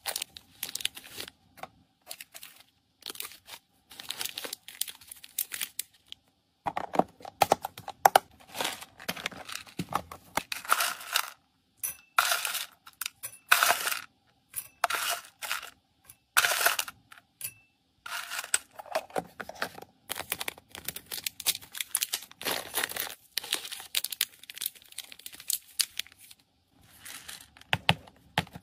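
Clear plastic packets of cat treats crinkling as they are handled with tongs, and dry cat kibble rattling as it is scooped and tipped into a glass bowl. It comes as a run of separate clicks and short rustles with brief pauses between them.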